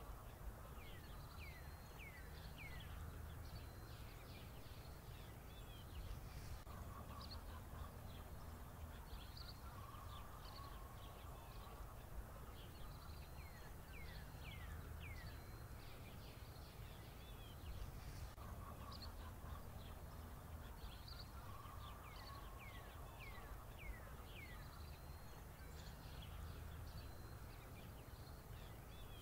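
Faint bird chirps, quick falling calls in small clusters every several seconds, over a steady low hum.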